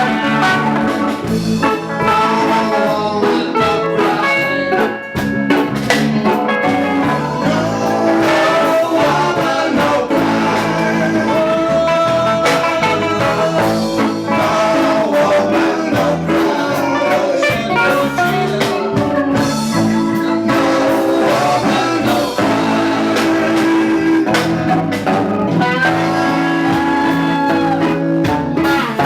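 A live reggae band jamming loudly, with electric guitar over bass and drums.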